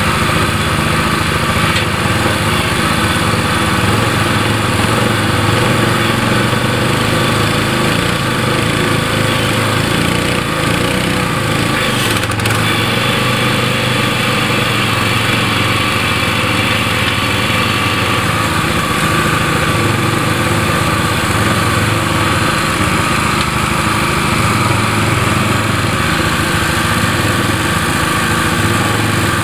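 Small gas engine of an ATV front-end loader rig running steadily while the loader digs, with a sharp knock about twelve seconds in and a higher whine joining for several seconds after it.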